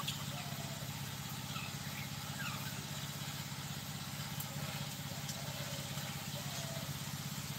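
Steady low hum of a small engine or motor running without change.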